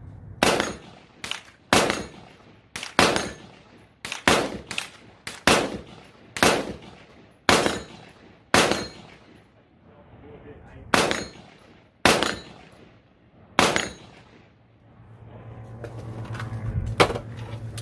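AR-15 rifle fired one shot at a time, about fifteen sharp shots at uneven intervals of half a second to a second or more, each with a short echo. Near the end the shooting stops, a low hum rises and there is one sharp click.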